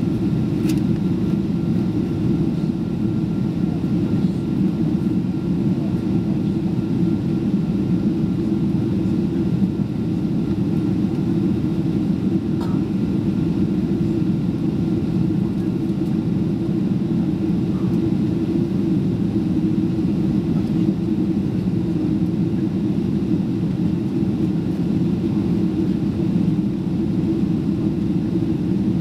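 Steady in-flight cabin drone of a Boeing 767-336 heard from an economy window seat: the noise of its Rolls-Royce RB211 turbofans and the airflow over the fuselage, a deep, even rumble.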